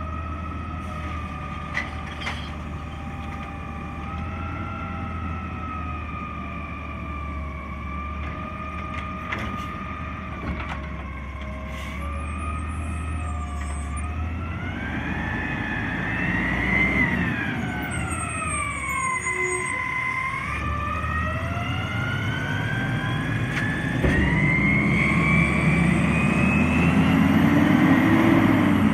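Autocar Xpeditor natural-gas garbage truck with a McNeilus Autoreach automated arm: a low engine hum under a steady hydraulic pump whine while the arm works the cart. About halfway through, the whine rises and falls with the engine revs, then climbs steadily as the truck pulls away, getting louder in the last few seconds.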